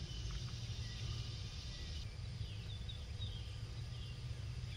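Birds chirping faintly in short, high, falling notes over a steady low rumble of outdoor background noise.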